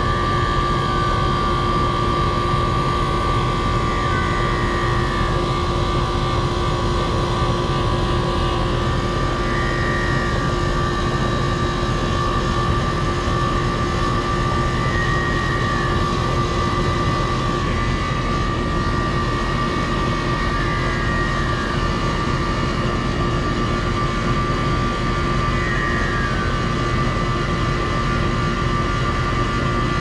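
Air-conditioner condenser of a 4-ton R-410A system running: fan noise with a steady whine from the compressor, and higher tones that shift every few seconds. The compressor sounds horrible and bad, a failing compressor on a system leaking and low on refrigerant, being charged back up.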